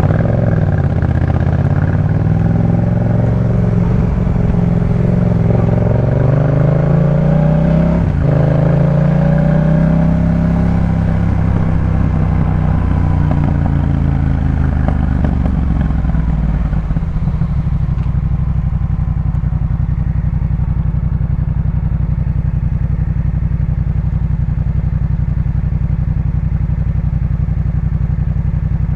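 Yamaha MT-07's parallel-twin engine through a Jeskap K4 full exhaust, heard from the saddle: the note climbs with the revs, breaks briefly at a gear change about eight seconds in, then falls away and settles to a steady low note for the last ten seconds or so.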